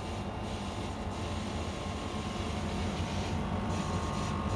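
Electrolux WP71-265WT portable air conditioner running with the fan on low: the compressor hums steadily, with a disturbing dissonant second sound beside the hum, and a faint higher tone joins about three seconds in. The owner takes the dissonance for a fault that a replacement unit also has; the maker calls it normal.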